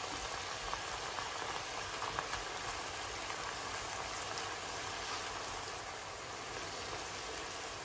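Mushrooms and tenderstem broccoli simmering in soy and oyster sauce in a wok, a steady bubbling sizzle as the sauce cooks down.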